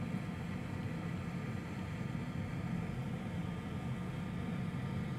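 Steady low hum of background room noise, with no distinct events.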